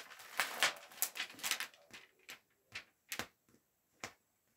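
Crinkling and rustling of the heavy plastic film covering a diamond painting canvas as it is handled and pushed into place. It comes as a run of short crackly bursts that thin out to scattered small crackles after about two seconds.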